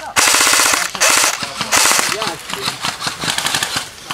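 Airsoft rifle firing full-auto bursts of rapid clicking shots, loud and close, in the first two seconds, followed by scattered quieter shots.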